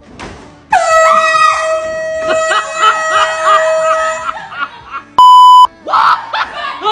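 Air horn blasting one long, steady, loud note for nearly four seconds while a person screams over it. A short, very loud beep follows, then more voices.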